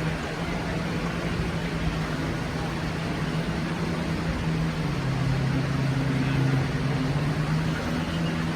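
Jet boat engine droning steadily over a constant rushing hiss, a second, lower engine note joining about five seconds in as it gets a little louder.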